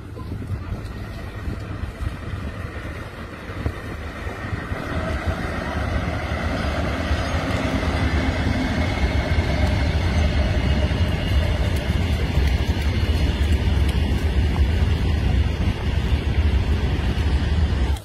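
Freight train hauled by an electric locomotive passing close by: a steady low rumble that grows louder over the first several seconds, then cuts off suddenly at the end.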